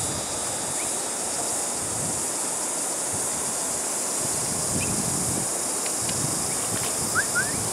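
Wind buffeting the microphone with a steady high insect hum over it, and two short rising chirps near the end.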